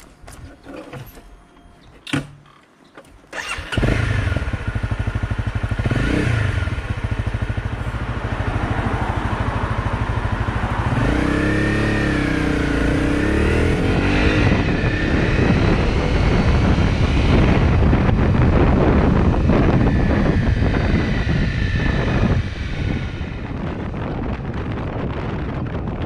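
Honda CRF250Rally's single-cylinder engine, coming in suddenly about four seconds in after a few clicks, then running as the bike rides, its revs rising and falling as it changes speed, dropping in level near the end.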